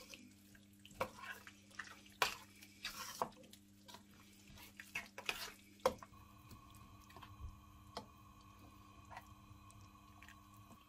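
Quiet stirring of wet beef mince filling in a stainless steel pan with a metal spoon: soft wet squelches with scattered scrapes and taps of the spoon on the pan. About six seconds in, these give way to a faint steady hum.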